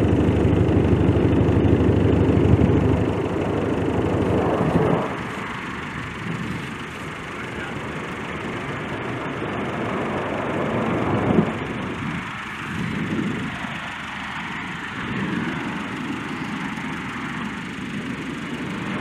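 Lockheed C-130J's four Rolls-Royce AE 2100 turboprop engines and propellers running loud with a fast, even beat during the landing rollout. About five seconds in the sound drops sharply to a softer rushing noise that swells and fades.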